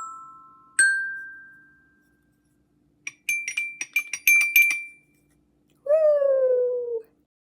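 Outro jingle of chime- or glockenspiel-like struck notes: two single ringing notes that slowly die away, then a quick run of a dozen or so high tinkling strikes, then a smooth falling tone near the end.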